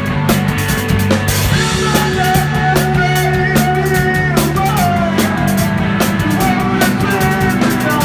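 Rock band playing live: drum kit with busy, evenly spaced cymbal and drum strokes under electric guitar.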